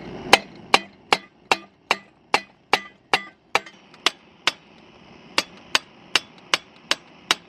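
Hammer banging on a stuck nut in the aluminium casing of an old chainsaw, about two and a half sharp blows a second with a short ring after each. The blows pause briefly a little past the middle, then resume at the same pace.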